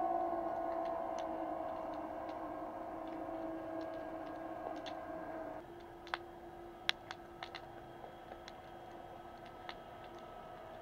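Underwater sound picked up through a camera's waterproof housing on the seabed: a steady two-tone hum that sags slightly in pitch and drops away about five and a half seconds in. After that come scattered sharp clicks.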